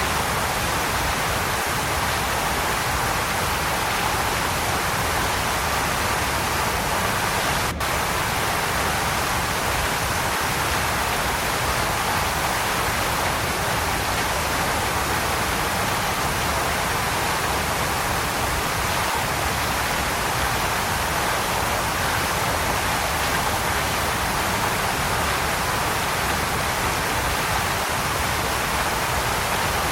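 Waterfall: a steady, dense rush of falling water, with a momentary dropout about eight seconds in.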